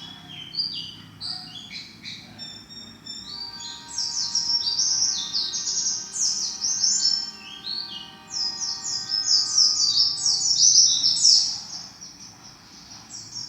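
A caged pet white-eye (pleci) singing a fast, high twittering song of rapid chirps and trills, in long bursts that ease off near the end.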